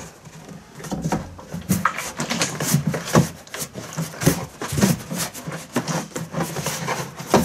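Plastic jerrycan holding a little oil shaken hard by hand: an irregular run of knocks and scrapes from the plastic container, with the oil sloshing inside.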